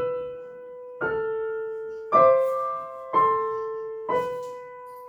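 Piano played slowly with both hands in A minor: a chord struck about once a second and left to ring as it fades.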